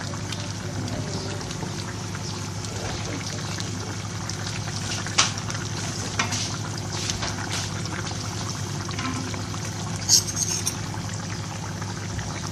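Tomato sauce with stuffed squash and meatballs simmering in a pan, a steady bubbling, with a few sharp clicks about five, six and ten seconds in.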